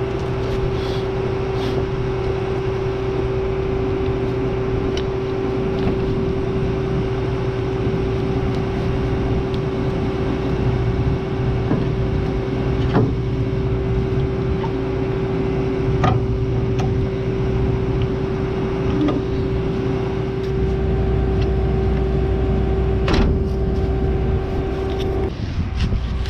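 A farm vehicle's engine running steadily, with a low drone and a constant hum above it. The hum shifts to another pitch near the end, and there are a few faint clicks.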